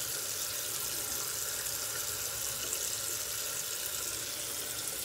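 Bathroom faucet running steadily into a sink.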